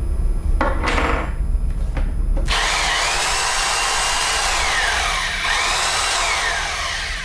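Huspanda HBD 2801 corded rotary hammer drill running free with no load, fitted with a drill chuck. It starts about two and a half seconds in with a high whine that dips in pitch and picks back up twice before stopping at the end. A short scraping noise comes about a second in.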